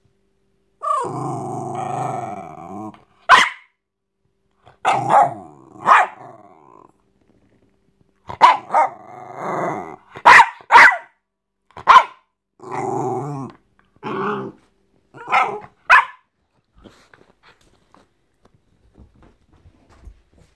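Jack Russell terrier growling in long rough stretches broken by several sharp short barks, the play-growling of a dog thrashing a teddy. After about seventeen seconds it goes quiet but for faint light ticks.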